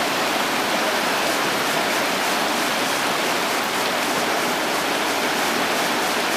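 Creek rapids: fast water rushing steadily over rocks in a shallow, rocky stream bed.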